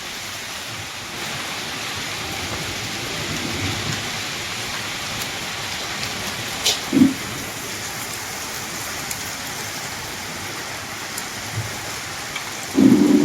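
Heavy rain falling steadily, an even hiss of downpour on surfaces, with a couple of brief dull thumps about seven seconds in and near the end.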